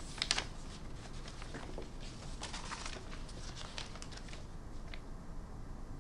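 Sheets of paper rustling and being handled, in clusters of short crisp rustles and clicks: one cluster right at the start, the loudest, and another from about two seconds that dies away a little after four seconds.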